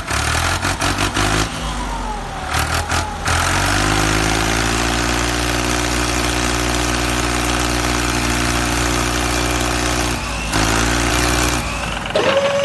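Tractor engine running steadily at a low, even pitch, with a short break about ten seconds in. A steady high tone starts just before the end.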